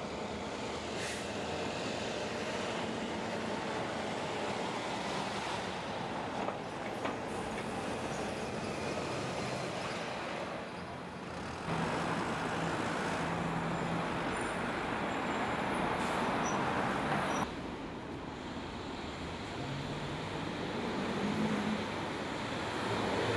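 City street traffic ambience: a steady wash of passing cars, taxis and trucks. In the middle the sound changes for several seconds to a hand-held hair dryer blowing with a steady hum, and near the end an engine's pitch rises as a vehicle pulls away.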